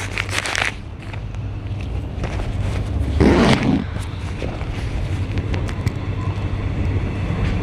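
Suburban electric train running between stations, heard from inside the carriage: a steady low rumble with faint clicks and rattles, and a brief louder noise about three seconds in.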